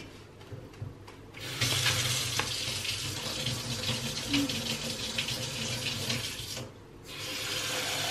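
Kitchen tap running into a pot at the sink, filling it with water for boiling pasta. The rushing flow starts about a second and a half in, stops briefly near the seven-second mark, then runs again.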